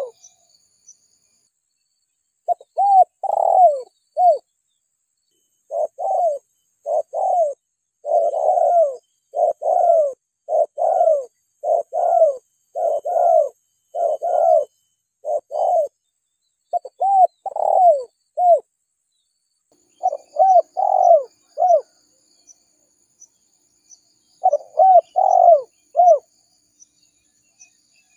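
Spotted dove (tekukur) cooing: short, arched coos strung into phrases. They start about two and a half seconds in, run for long stretches with a few short pauses, and stop near the end. Faint high chirping sounds behind it.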